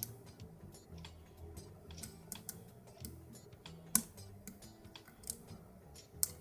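Small irregular metal clicks and ticks of a hook pick working the pins of a Ruko pin-tumbler lock under tension, with a few sharper clicks about four seconds in and near the end.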